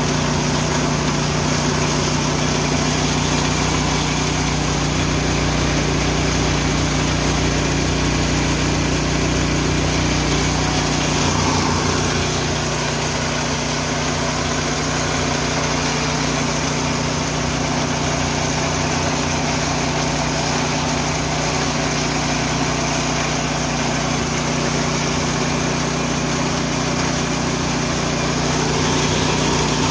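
Engine-driven Richi KD 350 rice and corn milling machine running steadily: a constant engine hum with machinery noise. The deepest part of the sound eases slightly about twelve seconds in.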